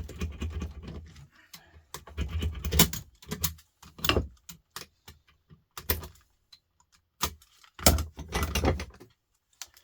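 Small metal scrap pieces from a dismantled plug (brass pins and screws) clinking and clattering as they are handled and dropped, in irregular sharp clicks with dull knocks under some of them.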